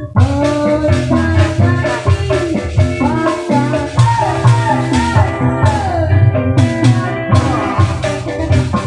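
Live Sundanese dance music played loud: kendang hand drums beating a steady rhythm under a guitar and a lead melody that slides and bends between notes.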